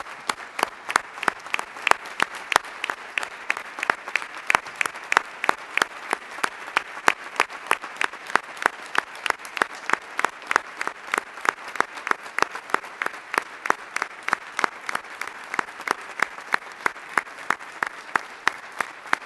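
Applause from a roomful of people clapping, with one nearby pair of hands clapping loud and steady, about three to four claps a second, above the rest.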